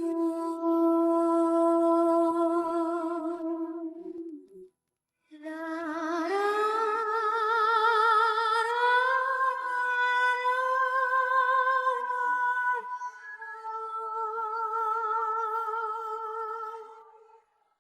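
Unaccompanied female voice singing long wordless held notes with a wide vibrato, in three phrases. A steady note breaks off about four and a half seconds in; after a short pause the voice slides up into a higher held note, then settles onto a slightly lower one that fades out near the end.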